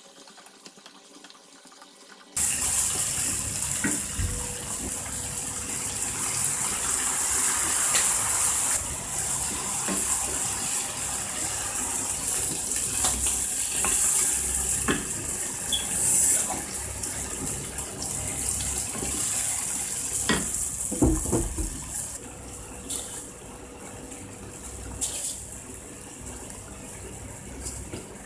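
Water poured into a hot pan of stir-fried pork mince and bok choy: a sudden loud hiss and rush of liquid about two seconds in, which goes on as the pan simmers and eases off near the end. A wooden spatula knocks against the pan a few times.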